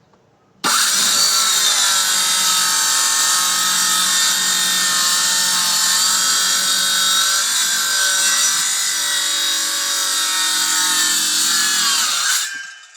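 Circular saw starting suddenly and cutting through plywood with a steady, loud whine for about eleven seconds, then spinning down with a falling pitch near the end.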